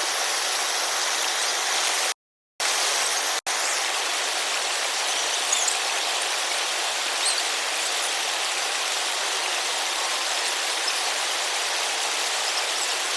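River water rushing steadily, broken by a short cut to silence about two seconds in.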